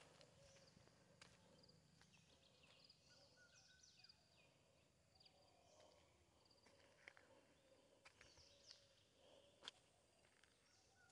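Near silence outdoors, with faint bird chirps and short trills scattered throughout and a few soft clicks, the sharpest about ten seconds in.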